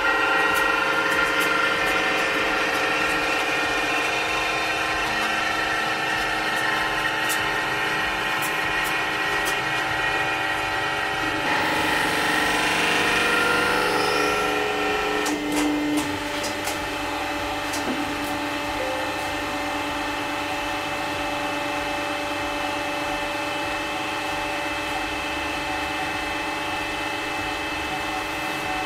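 Home-made hydraulic press running steadily under load with a machine whine, while the rubber band ball being crushed gives scattered sharp snaps. About halfway through the ball bursts with a rushing crackle. After that the press settles into a quieter, steadier running.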